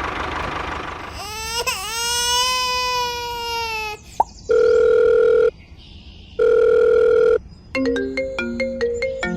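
Edited-in sound effects and music: a long wailing, cry-like tone, then two separate one-second electronic beeps, then a short plinking tune of quick notes.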